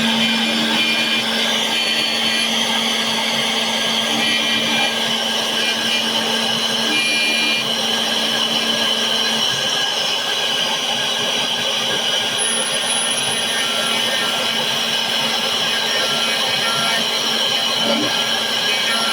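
Xhorse Dolphin XP-005 key cutting machine running as it mills a key blank: a steady machine sound with a high whine from the spindle.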